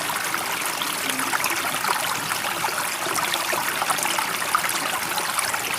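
Steady running water with many small drips and splashes, even in level throughout.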